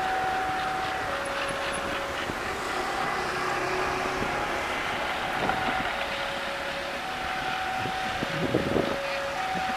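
A train of old two-axle freight wagons rolling slowly away along the track, a steady running noise with a thin high whine that switches between two pitches and comes and goes. A few clanks, the loudest just after eight seconds.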